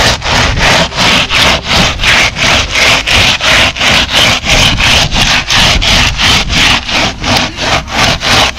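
Timber tamping board being worked back and forth across wet concrete, a loud rasping scrape repeated evenly about four to five times a second.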